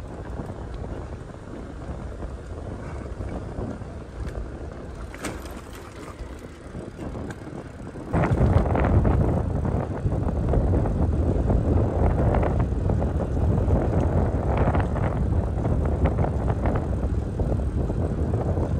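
Wind buffeting the microphone while riding a bicycle along a road, a steady rushing noise; about eight seconds in it becomes much louder and rougher.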